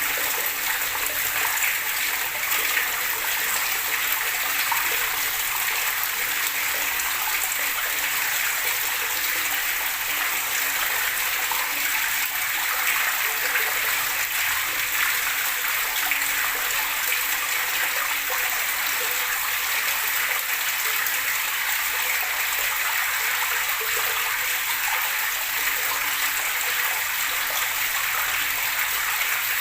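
Running water gurgling and rushing steadily, a continuous hiss with no breaks.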